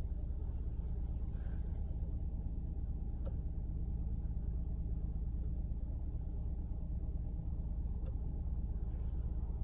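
Chevrolet New Onix running at idle: a steady low hum with a stack of even tones. Two short sharp clicks, about three seconds in and about eight seconds in.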